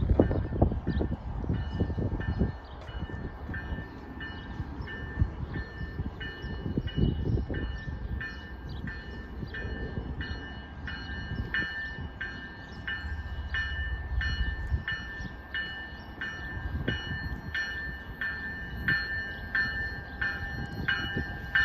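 Electronic railroad warning bell dinging steadily, about three strikes every two seconds, as a train approaches the station. A low, gusty rumble sits underneath, loudest in the first couple of seconds.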